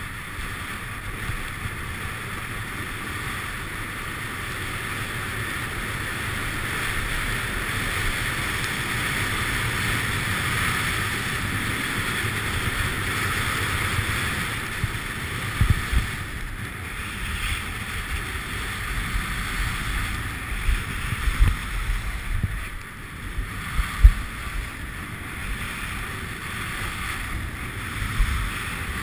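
Skis hissing and scraping over snow during a fast run, with wind rushing over the microphone. Scattered low thumps in the second half.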